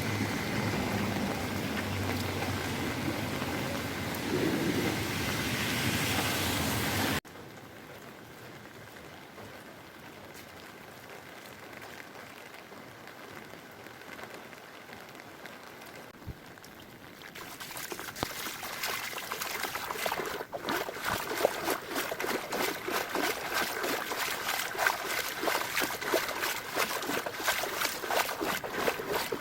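Rain and running water with traffic. A louder stretch with a low engine hum cuts off suddenly about seven seconds in to a quieter steady hiss. From a little past halfway, a dense patter of raindrops and splashing water builds.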